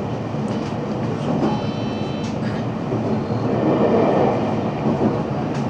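JR Central 313 series electric train running, heard from the front of the lead car: a steady rumble of wheels on rail with a few clicks, and a brief high tone about a second and a half in.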